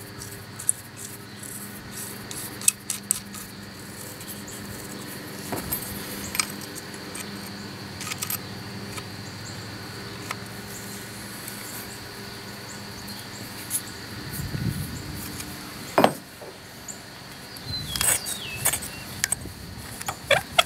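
Scattered metal clicks and clinks of hand tools and starter parts being handled and tightened, with one louder knock about two-thirds of the way through and a quick run of clicks near the end.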